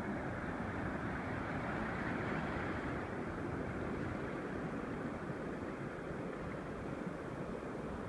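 Ocean surf washing up over the sand, a steady rushing noise with a low rumble underneath.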